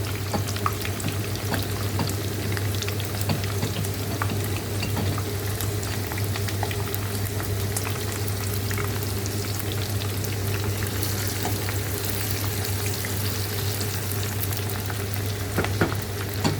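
Onions frying in hot palm oil, a steady sizzle with many small crackles. A steady low hum runs underneath, and there are a couple of sharp clicks near the end.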